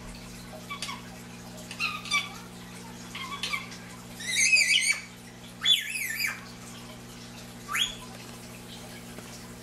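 Indian ringneck parakeet chattering in short calls. The loudest is a burst of rapid warbling about four to five seconds in, followed by another a second later and a quick rising whistle near the end. A steady low hum runs underneath.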